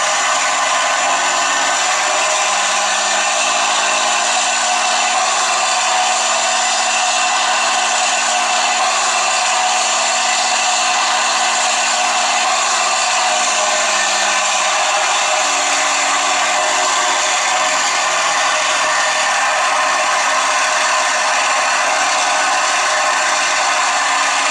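Simulated P-51 Mustang V-12 engine sound from an onboard Mr RC Sound v4.1 module, played through a single TT-25 exciter speaker, so it comes out thin and buzzy. The engine note climbs in pitch over the first few seconds as the throttle opens, holds high, then winds back down about two-thirds of the way through.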